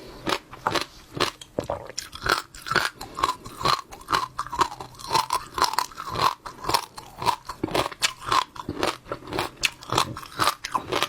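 Close-miked chewing of wet passionfruit seeds: the seeds crunch and pop between the teeth with wet squelching sounds, about two or three crunches a second.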